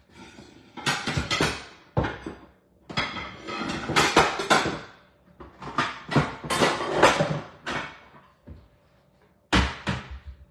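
Kitchen clatter: dishes and utensils being handled and set down, in bursts about a second long, with two or three sharp knocks near the end.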